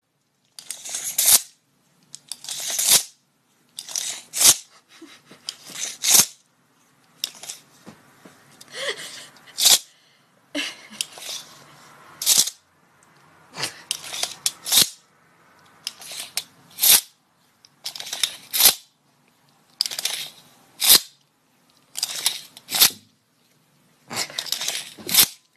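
A tape measure's blade being pulled out and let snap back again and again, about a dozen times, roughly every two seconds: each time a short rattling rush that ends in a sharp click.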